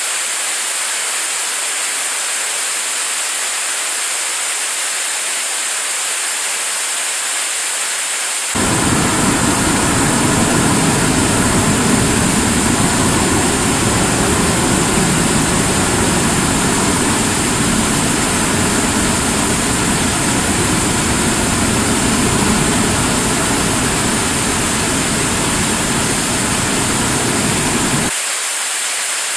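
75-ton-class liquid-propellant rocket engine firing steadily on a test stand: its exhaust gives a steady rushing noise, which about nine seconds in turns to a louder, deeper rumble heard from a distance, then back to the thinner rushing noise near the end.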